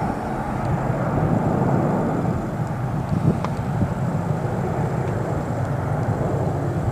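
Airbus A319 twin jet engines at takeoff power as the airliner climbs away just after liftoff: a steady, deep rumbling noise that swells slightly in the first couple of seconds.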